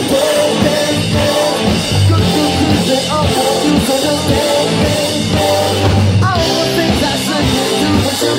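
Rock band playing: singing over electric guitar, bass and a steady drum beat.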